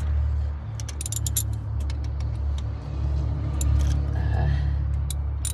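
Metal hand tools, a socket wrench and its long extension, clinking and clicking in short scattered taps while being handled, over a steady low rumble.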